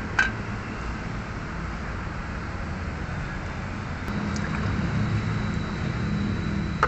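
Steady low workshop rumble with two sharp metallic clicks, one just after the start and a louder one at the end, from hand tools working at the transmission's exposed valve body and filter.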